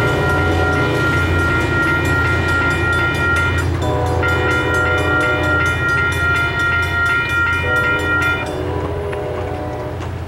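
Locomotive air horn of an ACE commuter train blowing long held chords over the steady low rumble of the train. The chord changes about four seconds in, and the horn stops about eight and a half seconds in.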